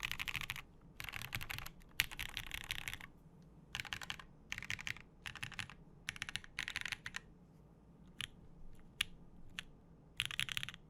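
Typing on a Lin Whale VKG mechanical keyboard with Marshmallow switches lubed with Krytox 205g0, an aluminium full plate and GMK Shoko R2 keycaps. There are several quick bursts of keystrokes, then a few single key presses, then a last burst near the end.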